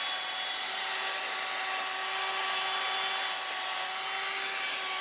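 Dirt Devil AccuCharge cordless hand vacuum running with its built-in crevice tool, a steady high motor whine over a rush of air as it sucks caraway seeds out of carpet at the foot of a wall.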